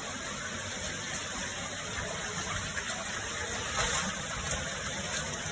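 Steady rush of water running and falling through a cave, with a few light knocks from about the middle on.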